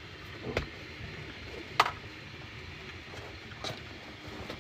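Bambu Lab A1 Mini 3D printer running a print: a low steady hum with a few sharp clicks.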